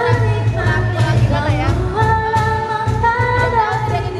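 Background pop music: a singer holding long notes over a steady bass line.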